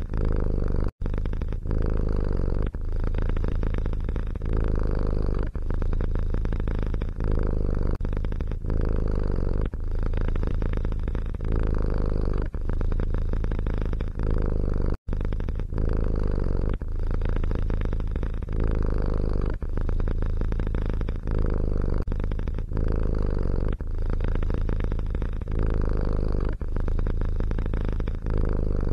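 Domestic cat purring loudly close to the microphone, rising and falling about every one and a half seconds with its breathing; the sound cuts out briefly twice.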